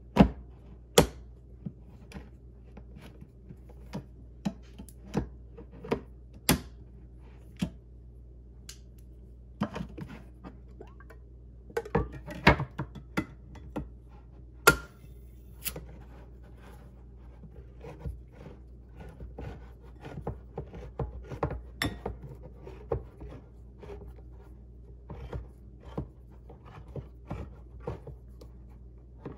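Manual side-wheel can opener with red handles worked on a metal can: the key is turned in short strokes, giving irregular sharp clicks and knocks as the cutting wheel bites its way around the lid, with a few louder clacks among them.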